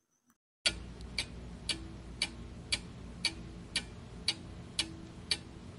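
Clock-ticking sound effect, starting about half a second in, with about two ticks a second over a faint steady hum. It is a countdown timer giving time to answer a quiz question.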